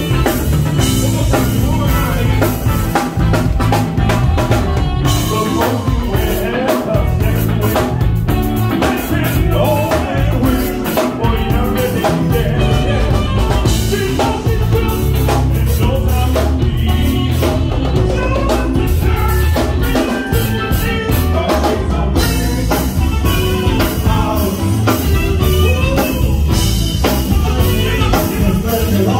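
Live band playing: electric guitars, bass guitar and a drum kit keeping a steady beat, with singing.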